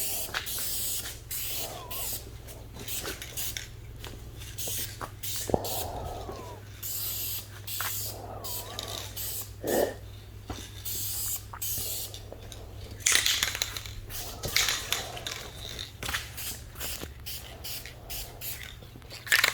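Aerosol rattle can of candy paint spraying in many short hissing passes with brief gaps between them, laying a light candy coat over the paint.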